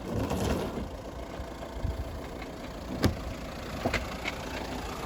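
Off-road jeep engine running, with a few sharp knocks, the loudest about three seconds in.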